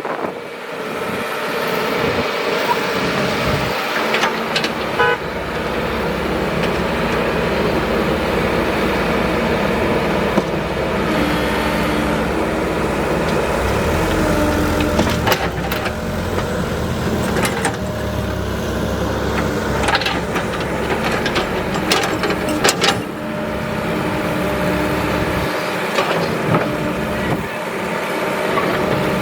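Excavator engine running steadily under load, with a deep rumble and a few sharp clanks partway through.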